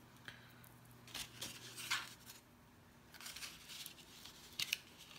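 Double-sided adhesive tape being pulled off its roll and pressed onto card stock: a few short, faint scratchy rasps and paper rustles, the loudest about two seconds in and again near the end.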